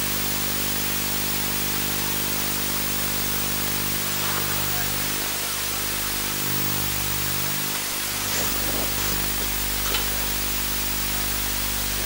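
Steady static hiss with a constant low hum beneath it. A faint click comes about ten seconds in.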